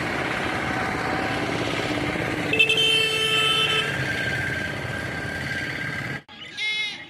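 Steady roadside traffic noise with a vehicle horn held for about a second near the middle. The sound breaks off about six seconds in, and a short high call with wavering pitch follows.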